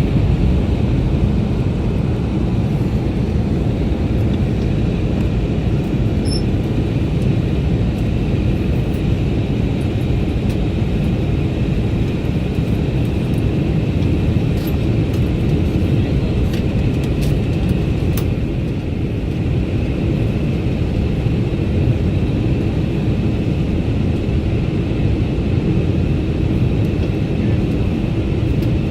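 Airbus A321neo cabin noise from a window seat on approach: a steady low roar of airflow and engines, with a faint steady high whine over it.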